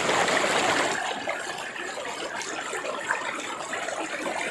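Waterfall water rushing and splashing in a steady noise, a little louder for the first second or so.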